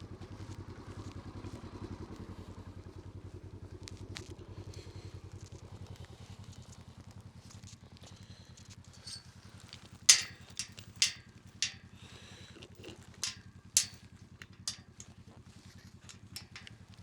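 Utility vehicle's engine idling steadily with an even low pulse. From about ten seconds in, a run of sharp crunching clicks, the first one the loudest.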